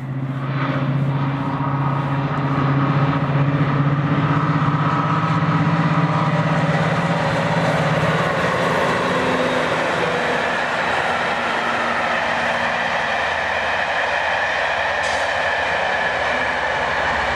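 Class 55 Deltic locomotive D9009 'Alycidon' passing at speed under power, the loud steady drone of its twin Napier Deltic two-stroke diesel engines dominating for the first half. About eight seconds in the engine drone fades and the rush of its train's wheels on the rails takes over.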